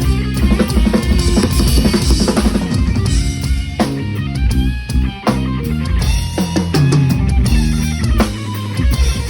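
Drum kit played along to a recorded backing track: kick drum, snare and rimshots over a steady groove, with bass and other instruments sustaining underneath.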